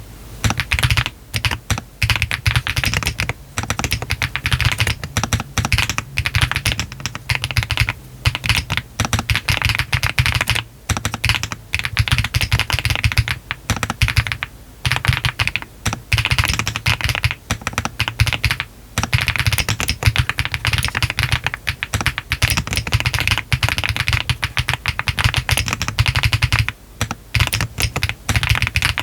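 Meletrix ZOOM TKL mechanical keyboard with Yogurt switches, all internal foams fitted, a polycarbonate flex-cut plate and PBT cherry-profile keycaps, being typed on at a steady pace, with a few brief pauses between runs of keystrokes.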